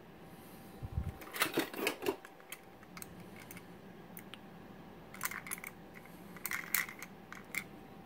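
Small plastic toy figures and a toy car clicking and clacking as they are handled, picked up and set down: a few quick clusters of sharp clicks, with a soft thump about a second in.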